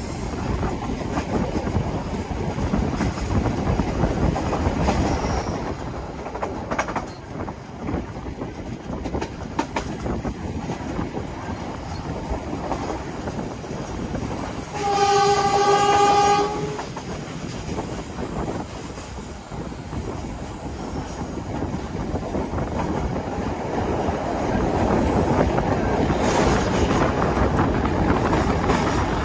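Wheels of a moving passenger train clattering and rumbling over the rails, heard from inside a train car, with a steady din and scattered clicks. About halfway through, the locomotive's horn sounds once, a single held note of about a second and a half. The running noise grows louder near the end.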